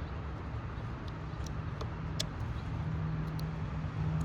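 A steady low hum throughout, with a few faint small plastic clicks as the white pin-locking insert is pressed into a new MAF sensor connector.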